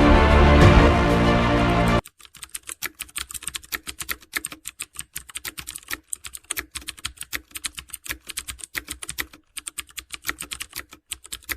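Music that cuts off abruptly about two seconds in, followed by rapid, irregular computer-keyboard typing clicks that run until near the end.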